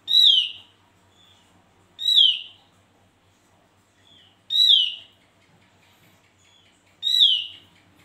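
Javan grey-throated white-eye (opior jawa) calling: four loud, downward-sliding whistled notes about two seconds apart, each preceded by a soft short note.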